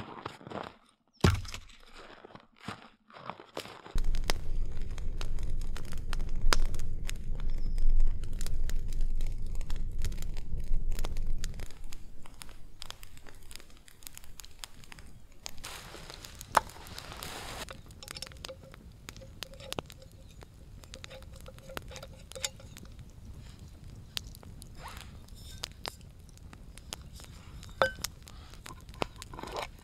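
Small campfire kindling crackling and snapping, with crunching and tearing of twigs and bark being handled. A strong low rumble runs from about 4 to 12 seconds in, and a short rustle comes near the middle.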